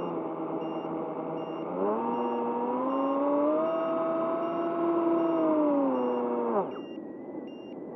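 Electric motor and propeller of an AR-900 RC flying wing, heard from its onboard camera: a steady whine whose pitch rises about two seconds in as the throttle opens, holds, then winds down and stops near the end, leaving a hiss of wind.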